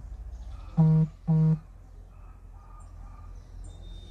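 Two short, steady low honks of a vehicle horn in quick succession, over a steady low street background with faint bird chirps.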